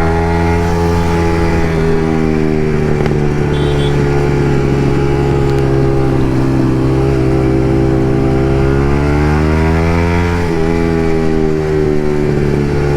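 Yamaha MT-15's single-cylinder engine, fitted with an Akrapovic exhaust, running under way at a steady cruise. The revs rise and ease off gently a couple of times.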